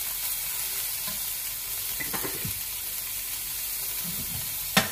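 Chicken pieces and chopped garlic sizzling in hot oil in a stainless steel pan, stirred with a metal slotted spoon that scrapes over the pan. A sharp knock near the end.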